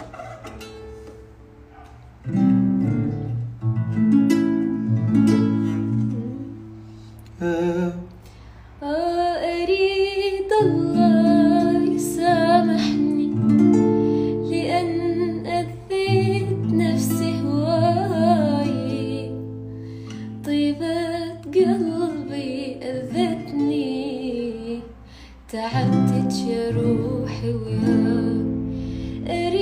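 Acoustic guitar strumming chords, starting about two seconds in, joined about nine seconds in by a woman singing a slow melody with vibrato.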